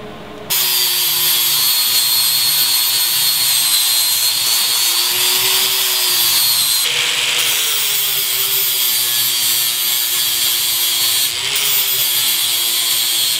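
Angle grinder with a flap disc grinding welded steel brackets: a loud, steady grinding whine whose motor pitch wavers. The sound changes abruptly twice, about 7 and 11 seconds in.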